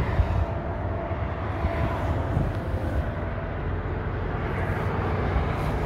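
Steady interstate highway traffic: a continuous rumble of tyres and engines, with single vehicles swelling and fading as they pass every second or two.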